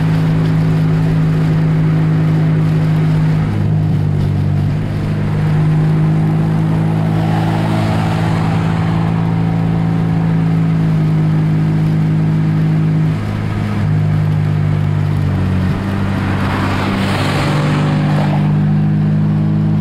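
Car driving at cruising speed, heard from inside the cabin: a steady low engine drone with road and tyre noise, its pitch stepping up and down a few times. Twice a louder rush of another car's engine and tyres swells and fades as it comes alongside, the second time near the end.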